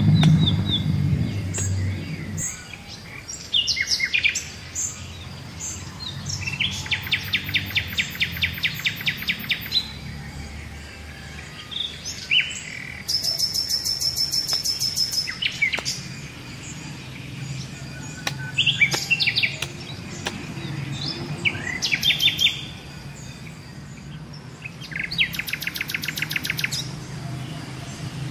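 Birds chirping and trilling, with several loud runs of rapid, evenly repeated high chirps lasting a few seconds each. A few dull knocks of a hoe striking soil come between them.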